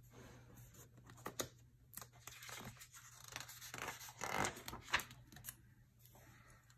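A page of a hardcover book being turned by hand: faint paper rustling with a few sharp crinkles, loudest about four to five seconds in.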